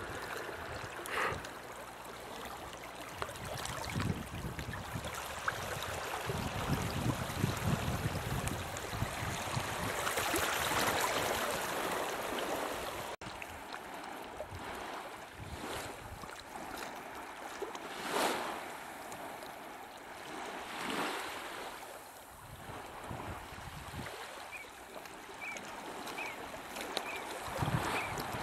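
Small waves washing and lapping in shallow water at a sandy, rocky shore, swelling a few times, with wind rumbling on the microphone.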